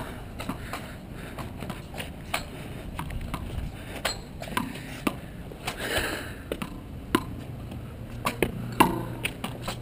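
A small ball being hit against a concrete handball wall with weighted knuckle rackets: an irregular string of sharp knocks as the ball strikes the racket strings and the wall in quick rally.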